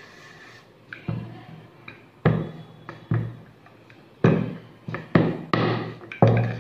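Wooden rolling pin knocking against a round wooden rolling board while thin dough is rolled out: a series of about eight hollow knocks, irregular and coming faster in the second half.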